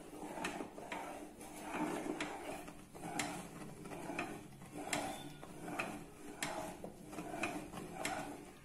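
Silicone spatula stirring and scraping curdling milk in a non-stick kadai, in an even run of soft strokes about two a second. The milk is splitting into chhena under added lemon juice.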